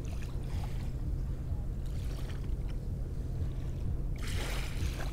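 Steady low hum and rumble of background noise across the water, with a short rush of hiss about four seconds in.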